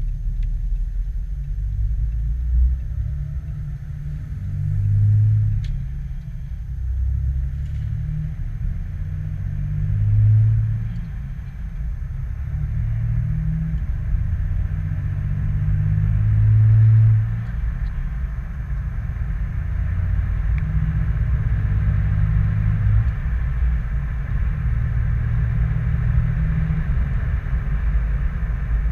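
Low rumble of a 2018 Ram 3500 pickup's diesel engine under way, its pitch climbing and dropping as it swells about 5, 10 and 17 seconds in, then running steadily.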